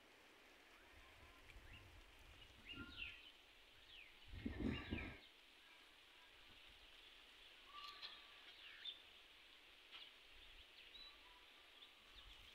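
Faint, scattered bird chirps and calls over a very quiet rural background. There is a brief louder rustle about four and a half seconds in.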